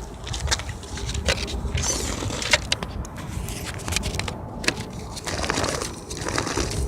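Irregular scraping and clicking over a low rumble: an electric RC drift car on hard 3D-printed TPU tires sliding on asphalt.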